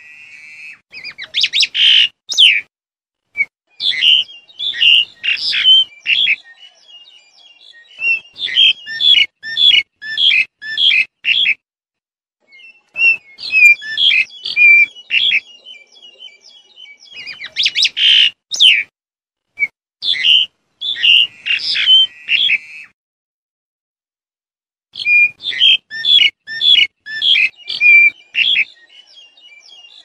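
Black-collared starling calling in bouts of quick, sharp notes mixed with short whistled tones, several notes a second, with brief silent breaks between bouts.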